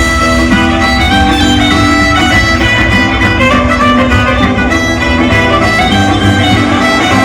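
Loud recorded music with a steady beat and a bowed-string or reedy lead melody, played over a sound system.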